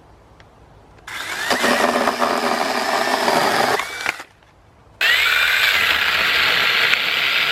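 Sainlogic 6-inch battery-powered mini chainsaw cutting through a dead wooden limb in two bursts. The motor whines up about a second in and cuts for about three seconds, stops, then starts again with a rising whine about five seconds in and keeps cutting.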